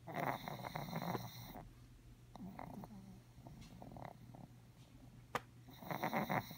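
A pug snoring: two loud, rattling snores, one at the start and one near the end, with quieter snuffling breaths between them. A single sharp click comes just before the second snore.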